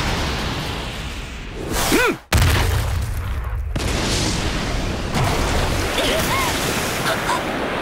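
Anime energy-blast sound effects: a loud, continuous rumbling blast. About two seconds in, a swooping whoosh rises and falls, then cuts off sharply, and a heavier low rumble follows.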